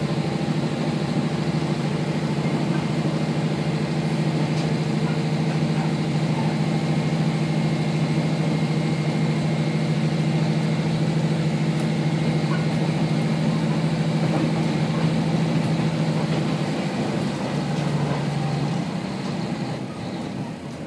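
Diesel engine of a Kashima Rinkai Railway 6000-series railcar running steadily under power, heard from inside the car. Near the end its pitch drops and it eases off.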